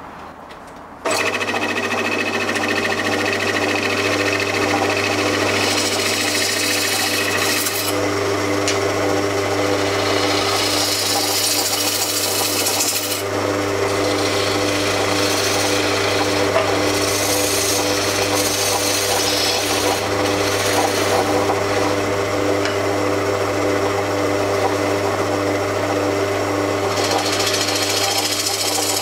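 Small bench-top wood lathe starting up about a second in and then running with a steady motor hum. Over it, a turning gouge cuts the face of the spinning wooden blank with a scraping hiss that comes and goes as the tool is drawn across the face.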